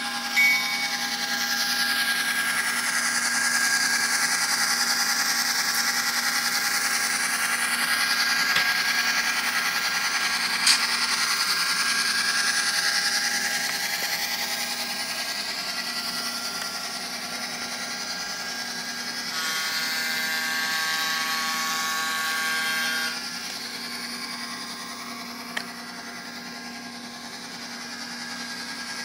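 Soundtraxx Tsunami Micro decoder playing F7 diesel locomotive engine sound through the tiny speaker of a Bachmann N scale F7A, mixed with the whine of the model's motor and gears. About two-thirds of the way through, a held chord of several tones sounds for about three seconds, then stops abruptly.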